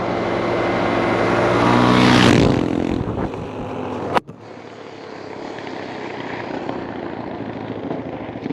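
A vehicle's engine running steadily, louder and brighter for the first couple of seconds; about four seconds in there is an abrupt cut with a click, after which a quieter steady driving sound continues.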